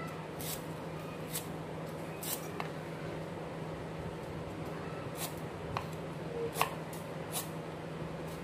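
Kitchen knife slicing through lemongrass bulbs onto a wooden cutting board: short, sharp cuts at an uneven pace, roughly one a second, over a steady low hum.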